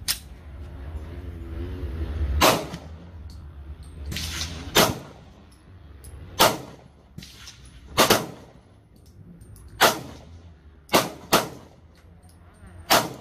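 A Glock 19 Gen 3 9mm pistol fitted with a DPM recoil reduction system, fired in slow single shots: about eight sharp reports, roughly one every one to two seconds, two of them close together near the end.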